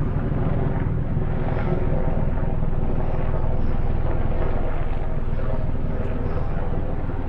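Steady, even aircraft engine drone.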